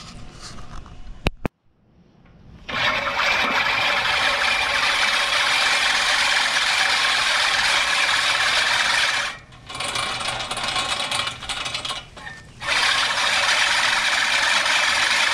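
Push reel lawnmower rolling over a lawn, its spinning reel blades rattling and whirring as they shear grass against the bottom cutting bar. It starts about three seconds in and breaks off briefly twice partway through. The freshly adjusted bar is making proper contact with the blades, so it cuts nicely.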